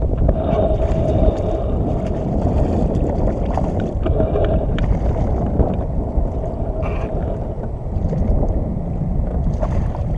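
Wind buffeting the microphone over water lapping against a kayak, with a hooked bass splashing at the surface beside the kayak near the end.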